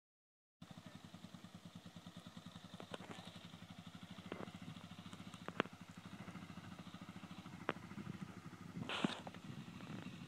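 Quad bike engine running at an easy, steady pace, its firing beating evenly, starting about half a second in. A few sharp clicks and a brief hiss near the end sound over it.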